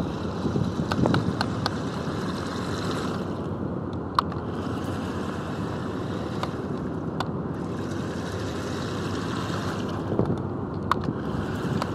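Amphibious radio-controlled car driving through a shallow rainwater puddle. Its motor whirs in bursts of a few seconds as the throttle opens, and it splashes louder as it comes close near the end, over a steady rush of wind.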